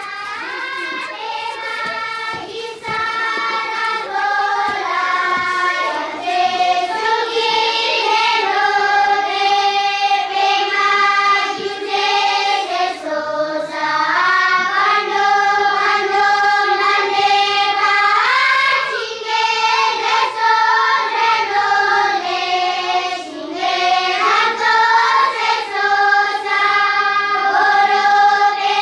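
A group of children singing a melody together, holding long notes.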